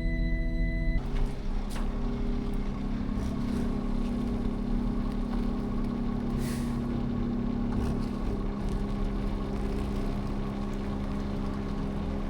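Semi-truck diesel engine idling steadily, with a short hiss of air about six seconds in. It follows a second of steady musical tones at the start.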